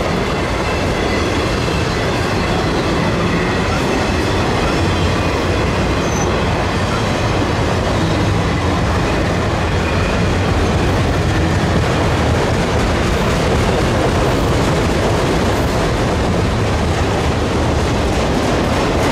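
Freight train of autorack cars rolling steadily past on the main line: continuous wheel-on-rail rumble and clatter, with faint high squealing tones over it.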